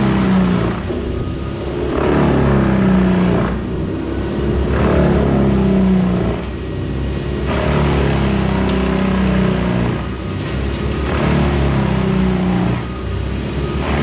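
Heavy equipment diesel engine running under load, its sound swelling and easing every two to three seconds.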